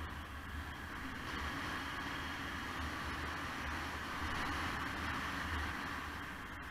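Honda CB500X motorcycle under way on a paved road: a steady rush of wind and road noise, with an unsteady low rumble of wind buffeting the microphone.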